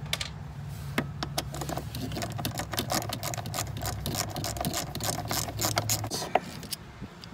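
Rapid clicks and plastic scraping as a blower motor resistor is worked out of its plastic housing by hand, over a low steady hum that stops about six seconds in.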